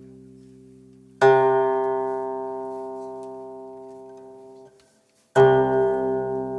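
Guqin, plucked: two strong single notes, each ringing out and slowly fading. The first comes about a second in and cuts off abruptly; the second comes near the end and wavers as it rings.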